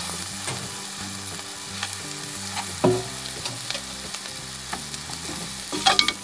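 A spoon stirring and scraping mashed potato and fried onions around a metal pan over the flame, with a low sizzle of oil underneath. The spoon knocks loudly against the pan once about three seconds in and several times near the end.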